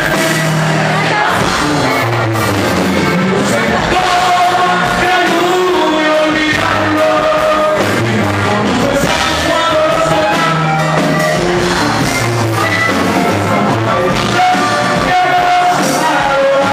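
Live regional Mexican band music: a sousaphone playing a repeating bass line under an accordion, with singing over it.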